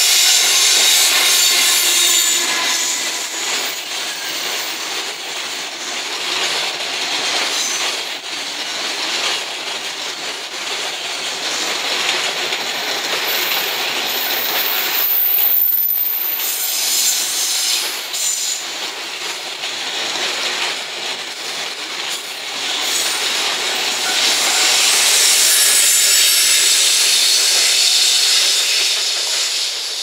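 A JR Freight container train climbing a grade: an EF210 electric locomotive and a long string of container wagons rolling past on a curve, wheels squealing against the rails and clattering over the rail joints. The noise swells again near the end as the EF210-300 banker locomotive pushing at the rear goes by.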